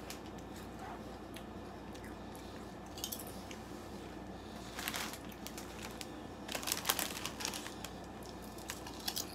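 Foil crisp packet crinkling in several short bursts as a hand reaches in, with crunching and chewing of thin cheese-flavoured crisps.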